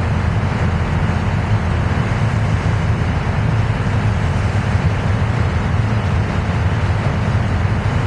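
A boat's engine running steadily under way: a constant low drone, with water and wind noise rushing past.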